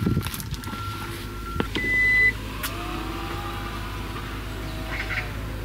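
Inside a car with the engine idling as a steady low hum, a short electronic beep sounds about two seconds in, followed by a faint tone that slowly rises and falls.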